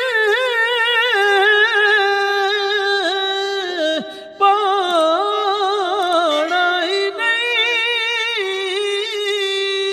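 A man singing a Punjabi naat unaccompanied, holding long ornamented notes that waver in pitch, with a short break about four seconds in.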